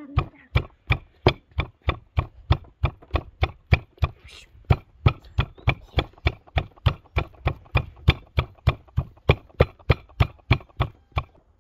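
A round stone pounding walnuts in a wooden bowl: quick, even knocks about four a second, crushing the nuts to a coarse meal.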